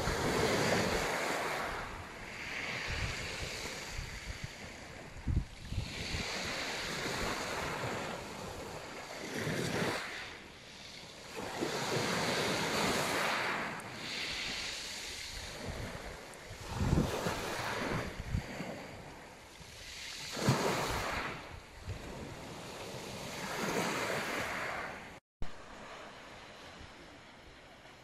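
Small sea waves breaking and washing up a pebbly shore, surging and fading every few seconds, with wind buffeting the microphone in low thumps. The sound cuts out briefly near the end and returns as a quieter, calmer wash.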